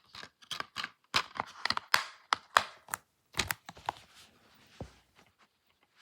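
Plastic DVD case and disc being handled: a quick, irregular run of sharp clicks and snaps, thinning out after about four seconds, with one dull knock near the end.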